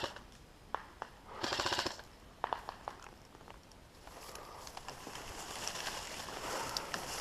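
An airsoft gun fires a short full-auto burst about a second and a half in, a rapid run of clicking shots lasting about half a second, with a few single sharp cracks around it. A rustling noise builds over the last few seconds.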